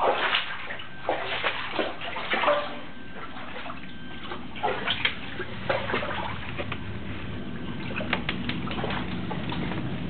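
Floodwater sloshing and splashing in irregular bursts, strongest in the first few seconds and again around the middle, with a few sharp clicks near the end.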